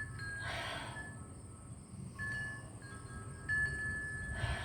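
Wind chimes ringing, several clear tones starting at different moments and overlapping. Two short rushes of breath come through, about half a second in and near the end.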